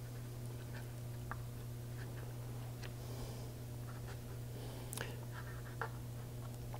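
Razor blade scraping and dragging wet paint across illustration board: faint, scattered scratches and small ticks over a steady low hum.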